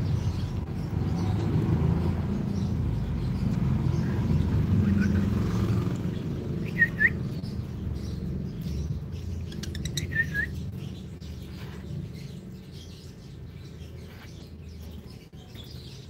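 Lovebirds giving short, sharp chirps: a quick pair about seven seconds in and another pair about ten seconds in, with a few fainter calls. Under them is a low rumble that fades through the second half.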